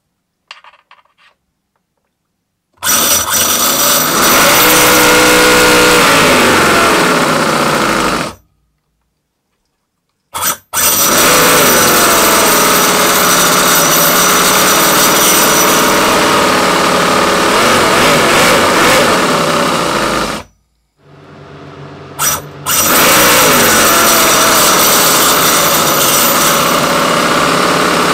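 RoWin FS-V800 scale model V8 engine running loudly in three stretches separated by a few seconds of silence, its pitch rising and falling with the revs. A few faint clicks come in the first second.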